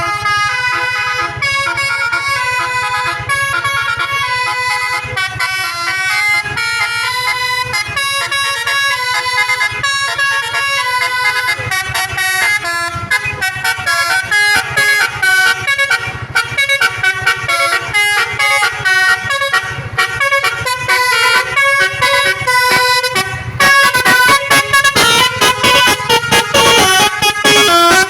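A bus's Basuri 'telolet' musical horn, a set of air-horn trumpets playing a quick tune of stepped notes over a low steady hum. It gets louder and more choppy in the last few seconds.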